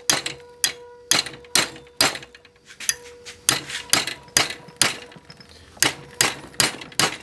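A small sledgehammer strikes a silver-soldered joint between two 1/8-inch stainless steel washers clamped in a vise, about fifteen blows a little over two a second, each with a short metallic ring. The blows are beating the joint apart, and the joint holds through them.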